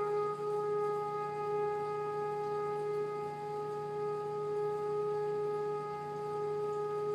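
Background music: one long held note on a horn-like wind instrument, steady and sustained, with a faint low hum beneath it.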